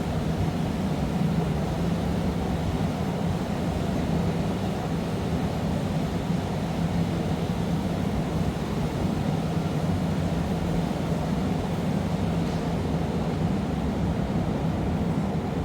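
Steady low roar of gas burners in a glassblowing studio, even and unbroken, with a faint steady hum underneath.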